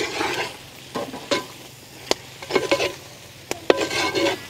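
A ladle stirring lobster pieces through thick masala gravy in a large metal pot, in four or five short wet strokes, with sharp clicks where the ladle knocks against the pot.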